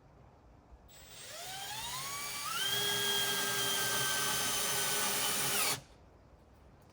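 Power drill motor spinning up to a steady high whine, running for about three seconds, then stopping abruptly.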